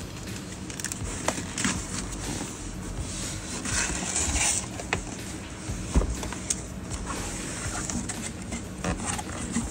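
A cardboard shipping box being handled and opened: cardboard scraping and rustling as the flaps are folded back, with several sharp knocks and taps against the box.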